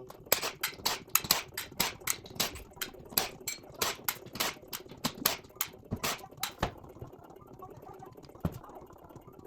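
A hand ratchet clicking in quick, uneven runs while loosening the clutch cover bolts on a motorcycle engine; the clicking stops about seven seconds in.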